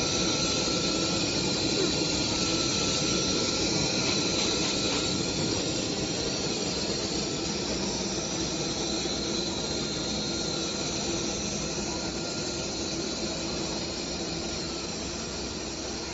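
Fabric laser cutting machine running as it cuts: a steady hiss with a high whine over it.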